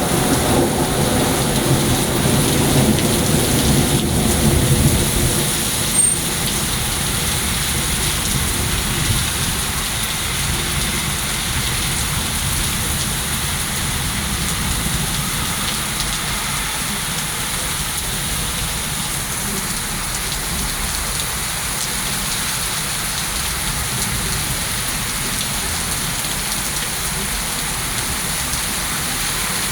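Heavy rain pouring steadily, with a low rumble of thunder in the first few seconds that fades away.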